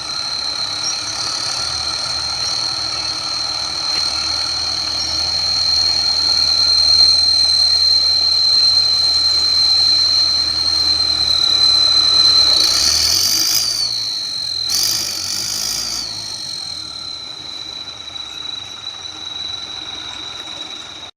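Tractor engine running with an add-on turbo whistle device fitted, giving a steady high whistle. Twice, about two-thirds of the way through, the whistle briefly rises in pitch and a louder rush joins it.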